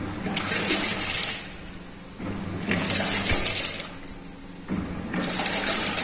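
Top-loading washing machine agitating a full tub of water during a tub-cleaning cycle. The water churns and sloshes in three surges with short pauses between.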